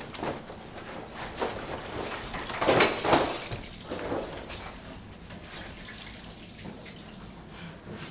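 Clothing rustling and small handling knocks, irregular and uneven. The loudest rustle comes about three seconds in, and the sounds grow quieter toward the end.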